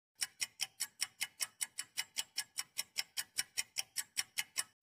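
Quiz countdown-timer ticking: a clock-style tick sound effect, steady and even at about five sharp ticks a second.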